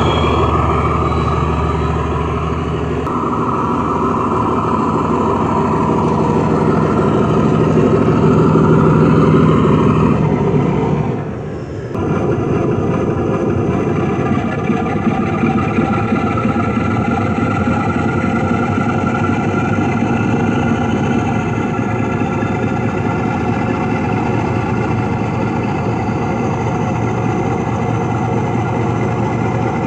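Class 47 diesel locomotive sound, the Sulzer 12LDA28 engine running steadily with deep tones. It dips briefly about eleven seconds in, then carries on.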